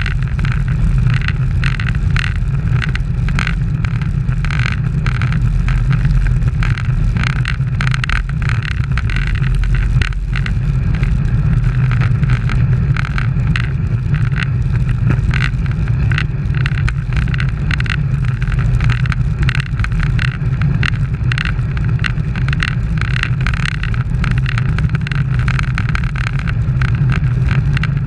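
Steady wind buffeting on the microphone of an action camera riding on a road bicycle at race speed. Under it run constant road rumble and frequent small rattles and clicks.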